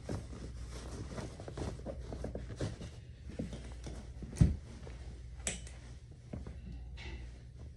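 Rustling and scuffing of denim and boot leather as a cowboy boot is pulled on and the jeans are tugged over it, with a loud dull thump about four and a half seconds in and a sharp click about a second later.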